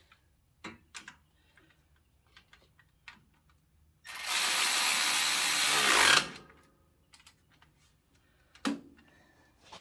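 Power tool running hard for about two seconds, starting about four seconds in, driving an alternator mounting bolt tight, with a slight drop in pitch as it stops. Light tool clicks around it and one sharp knock near the end.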